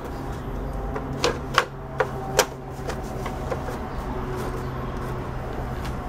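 Hard plastic clicks and knocks as the grey hood cover of a Hoover upright vacuum's base is fitted and pressed into place over the brush roll. Four sharp clicks come in quick succession from about one to two and a half seconds in, then lighter ticks, over a steady low hum.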